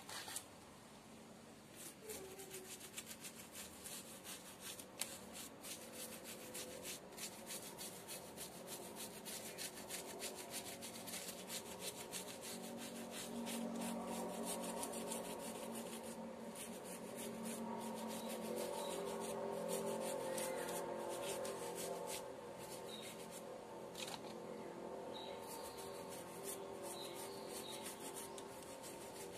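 Toothbrush scrubbing the bark of a bonsai trunk with cream soap: quick back-and-forth bristle strokes rubbing on the bark to clean off moss.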